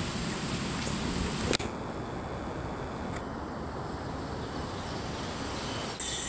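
Outdoor background noise with faint, steady insect buzzing. A single sharp click comes about a second and a half in, and the background changes right after it.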